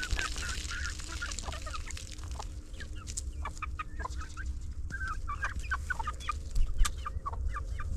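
Chickens clucking: many short calls overlapping and scattered throughout, over a steady low rumble.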